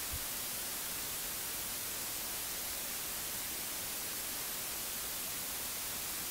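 Steady hiss of a recording's background noise, strongest in the high end, with one faint tick right at the start.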